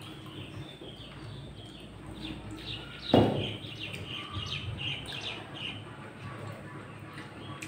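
Small birds chirping in quick repeated notes, with one loud close crunch about three seconds in as a broccoli floret is bitten.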